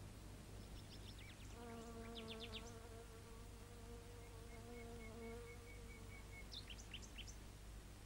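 Faint animation sound effects: a steady insect buzz lasting several seconds, with quick high bird chirps before, during and after it and a short trill in the middle.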